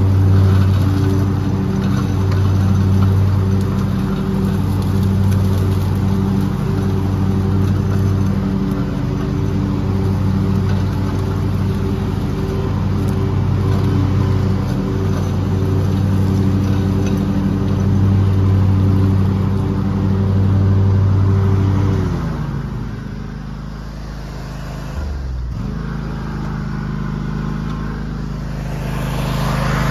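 An engine running steadily with a slowly pulsing hum. About three quarters of the way through, its pitch sags and then comes back to a steady run.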